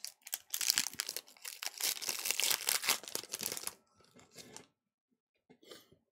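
Foil wrapper of a Pokémon trading card booster pack crinkling loudly as it is torn open for about three seconds, followed by a few fainter rustles as the cards are slid out.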